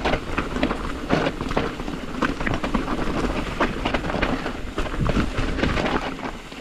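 Transition TransAM hardtail mountain bike riding down a dirt singletrack: tyres rolling over dirt and roots, with a dense, irregular run of rattling clicks and knocks from the bike over a steady low rumble.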